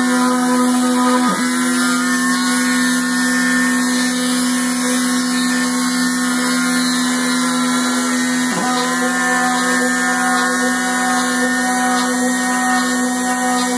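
Homemade CNC milling machine running with a steady, high motor whine that briefly dips in pitch a few times.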